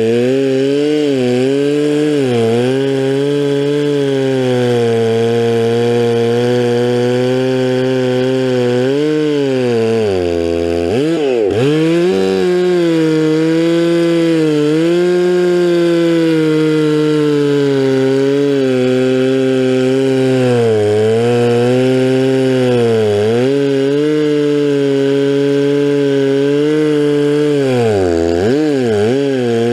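Stihl 046 Magnum two-stroke chainsaw with a 24-inch bar and milling chain, running at high revs while cutting a slab lengthwise through a log. The engine pitch sags under load and recovers several times, dropping sharply and climbing back about eleven seconds in and again near the end.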